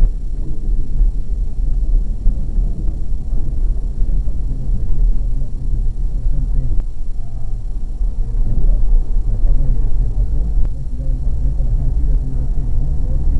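Low, steady rumble of a car being driven: engine and road noise.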